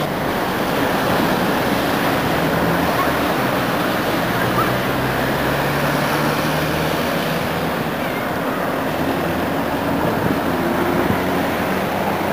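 Steady rushing of wind and street traffic with a faint low hum, as a tram comes along the track towards the microphone.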